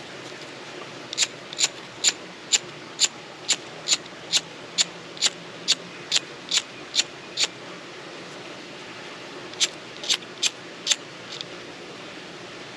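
Striker wheel of an empty Bic lighter, guard removed, being thumbed against its flint again and again to throw sparks: about fifteen sharp scraping clicks at roughly two a second, a short pause, then four or five more.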